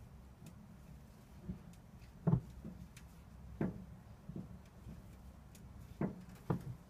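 About five soft, irregular knocks over a low steady hum.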